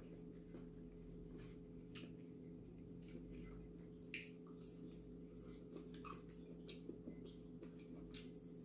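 Faint eating sounds: scattered soft clicks and smacks from shrimp being peeled by hand and chewed, the sharpest about two, four and eight seconds in, over a steady low hum.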